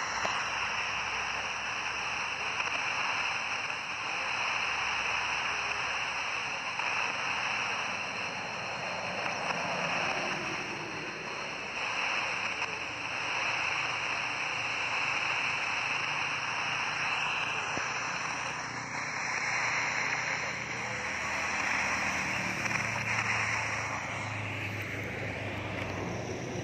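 Shortwave static from a Tecsun PL-310ET portable receiver's speaker, tuned to 12104 kHz: a steady rushing hiss that swells and fades slowly, as a weak signal drifts in and out of the noise.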